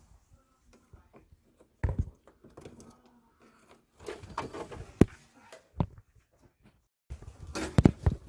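Irregular knocks, clicks and scraping of hand tools being worked at close range during cutting work in a pipe repair, with no motor running. A few sharp knocks stand out, about two seconds in, around five seconds, and near the end.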